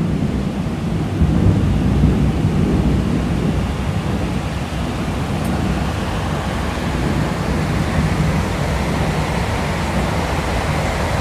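Heavy rain pouring down in a thunderstorm, with a low rumble of thunder rolling underneath, a little stronger in the first few seconds.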